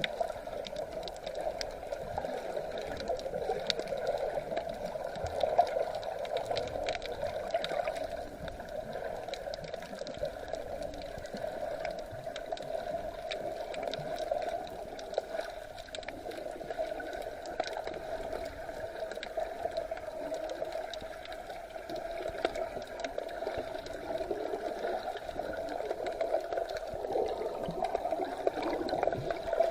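Sea water gurgling and sloshing steadily, with faint scattered clicks.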